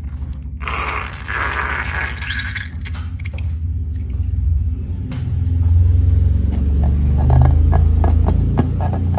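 Slime being kneaded and squished by hand, with a run of rapid clicks near the end.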